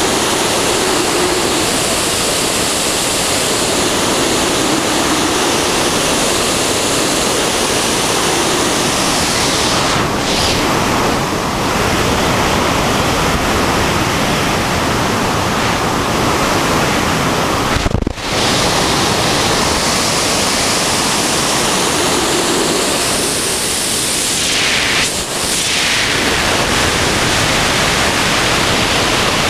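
Loud, steady rush of freefall wind buffeting the microphone during a wingsuit flight. It cuts out for a moment about eighteen seconds in, and its tone shifts briefly a couple of times.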